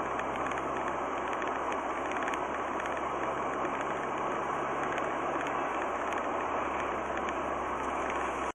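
Steady tyre and engine noise of a car driving at road speed, heard from inside the cabin through a dash cam, with a faint low engine hum underneath.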